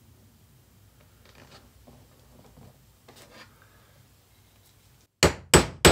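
Faint scratching of leather being handled and marked, then about five seconds in a claw hammer strikes a hole punch three times in quick succession, sharp loud knocks punching stitching holes through the leather sheath.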